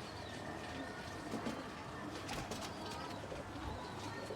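Domestic pigeons cooing quietly.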